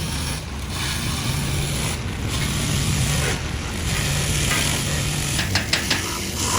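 A motor running steadily with mechanical clatter, and a quick run of sharp clicks near the end.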